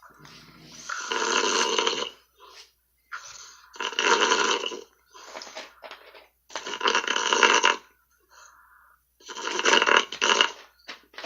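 A man snoring in deep sleep, heard through a Skype call. There are four loud snores about three seconds apart, with quieter breaths between them, and the sound is thin and band-limited.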